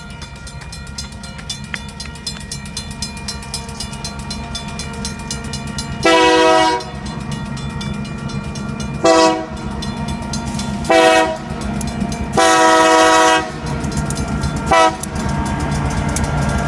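Grade-crossing bell ringing with rapid, even strokes while an approaching Union Pacific diesel locomotive sounds its multi-chime air horn in five blasts: medium, short, short, long, then a brief tap. The locomotive's low engine rumble grows louder near the end as it reaches the crossing.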